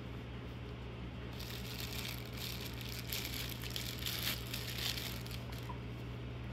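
Thin clear plastic packaging bag crinkling as hands open it and pull out a small power adapter. It starts about a second and a half in, is loudest in the middle, and dies away shortly before the end.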